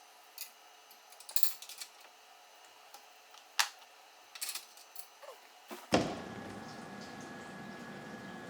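Scattered sharp clicks and knocks for about six seconds, then a CNC mill starts to cut with flood coolant: a steady rushing noise with a faint high whine begins suddenly and runs on.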